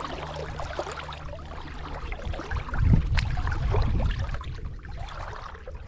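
Shallow seawater lapping and trickling close to the microphone over a low rumble that swells around three seconds in, with one sharp click just after.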